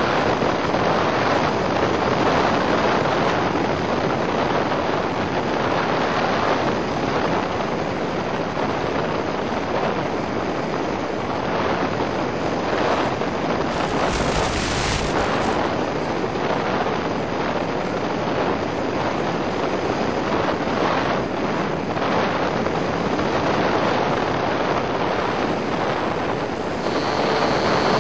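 Steady rush of airflow over the onboard microphone of a Multiplex Easystar RC glider flying with its electric motor off, with a brief burst of hiss about halfway. Near the end the electric motor and pusher propeller come on with a steady high whine.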